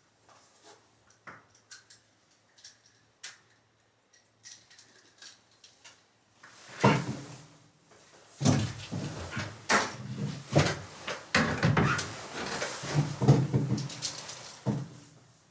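A few faint clicks, then from about seven seconds in a run of irregular clunks, knocks and rustling as fishing gear is handled in a small enclosed space.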